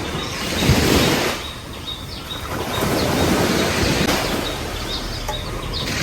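Sea waves breaking and washing up on a beach, the surf swelling about a second in, easing off, then building again.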